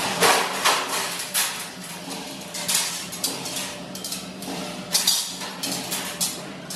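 Irregular metallic clanks and knocks of metal shelving parts being handled and fitted during rack assembly, about a dozen sharp hits, loudest about a quarter second in and again about five seconds in.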